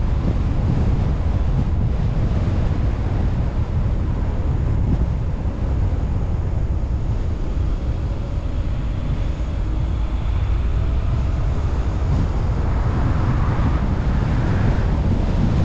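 Steady low rumble of wind and road noise from a moving car, with wind buffeting the microphone.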